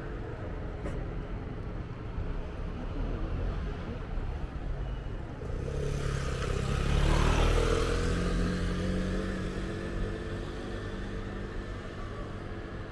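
A motor vehicle drives past close by, its engine sound swelling to loudest about seven seconds in and then fading, over a steady low rumble of city traffic.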